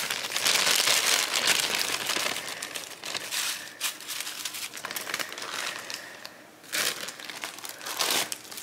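Clear plastic packets crinkling as they are handled and shaken out, with the dry shredded rice paper strips rustling as they fall into the bowl. The crackling is dense, eases briefly late on, then flares again twice.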